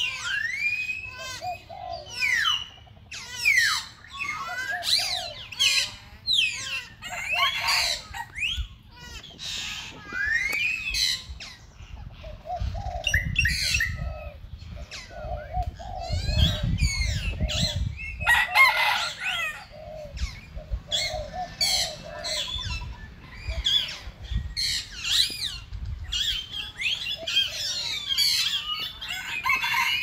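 Birds chirping and whistling: many short, quick calls that overlap and sweep up and down in pitch throughout, with a low rumble under them through the middle stretch.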